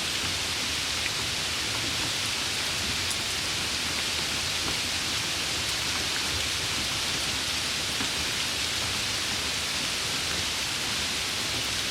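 Heavy rain falling: a steady, dense hiss, with a few faint drop ticks.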